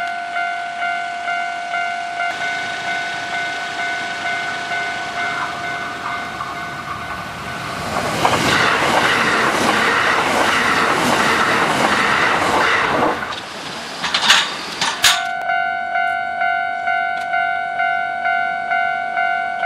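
Japanese level-crossing alarm bell ringing steadily, a little under two strokes a second. Partway through, a Kintetsu 21020 series Urban Liner Next limited express passes for about five seconds, a loud rush with wheels clacking over the rail joints. Two short, sharp sounds follow just after, then the bell rings on alone.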